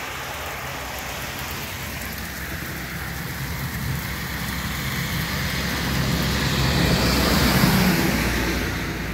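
Traffic on a wet highway: tyres hissing through standing water and engines rumbling, swelling as a truck passes close, loudest near the end.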